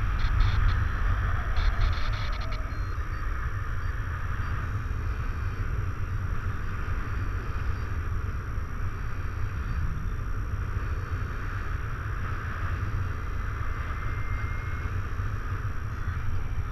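Wind rushing over the camera microphone in paraglider flight: a steady low rumble of airflow, with a few faint clicks in the first two seconds.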